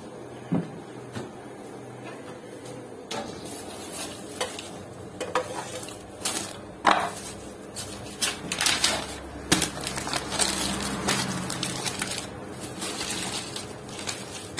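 Plastic cling film being pulled off a roll and crinkled around large cuts of meat, with scattered sharp clicks and knocks.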